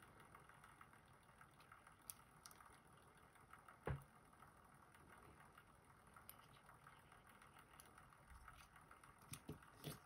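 Near silence with a few faint small metal clicks and one sharper click about four seconds in, from a JPM Surf lock cylinder being handled as its plug is slid out of the housing with a follower.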